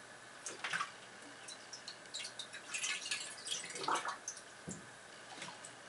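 Faint, scattered drips and small splashes of water in a bathtub as a model submarine's hull is moved about in it.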